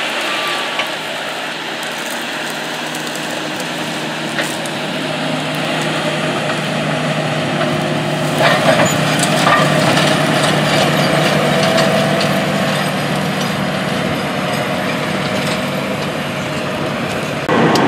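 A 620 hp Case IH Steiger Quadtrac tractor's engine runs steadily under heavy load as it pulls a nine-shank inline ripper through hard, drought-dry ground. Crackling from the ripper shanks tearing through the soil and crop residue is heard, with a few sharper cracks about eight to ten seconds in.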